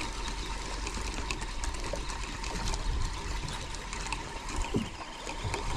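Sea water lapping and trickling against a small fishing boat, with scattered small clicks.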